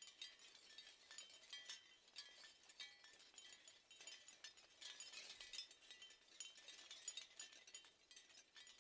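Seashell wind chimes tinkling faintly and without pause: many small overlapping clinks, with short high ringing tones among them.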